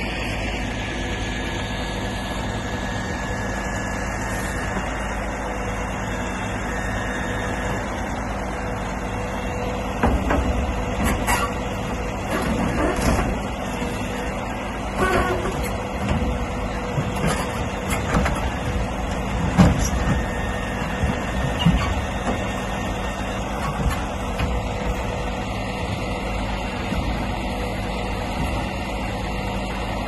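Diesel truck engine running steadily to drive a truck-mounted knuckle-boom log loader. From about ten seconds in come irregular knocks and thuds, as logs land in the steel dump body.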